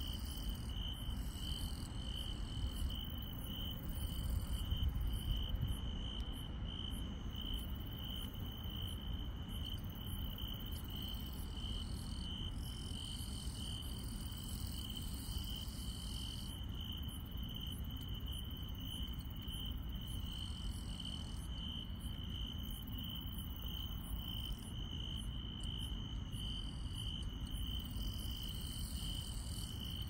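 Crickets and other grass insects calling at night: one chirps in a steady, even pulse, while higher chirring from others fades in and out. A low rumble swells briefly about four seconds in.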